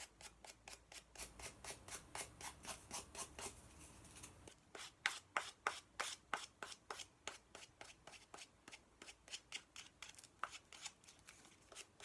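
Hand sanding of a paper craft piece: quick, even back-and-forth scratching strokes, about four or five a second.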